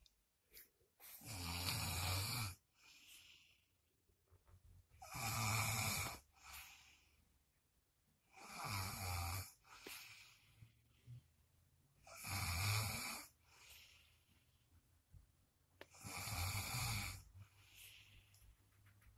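A sleeping person snoring: five long, deep snores come about every three and a half to four seconds, each followed by a softer breath.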